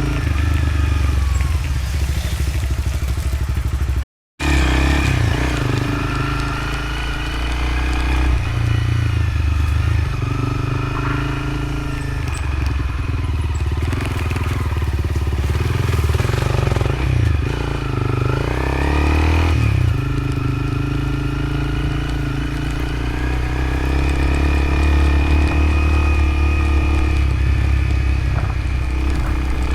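Motorcycle engine running under way on a dirt ride, its pitch rising and falling with the throttle over a heavy low rumble. A brief break in the sound about four seconds in.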